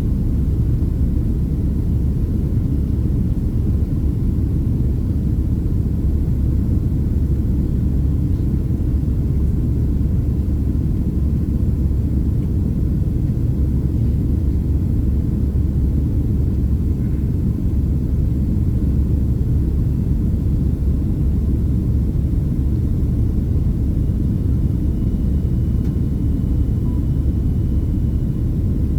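Steady, unbroken low cabin rumble inside a Boeing 767-300ER airliner: engine and airflow noise heard from a passenger seat.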